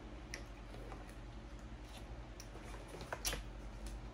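A few light clicks and taps as a clear plastic cup with a lid is handled, the loudest about three seconds in, over a low steady hum.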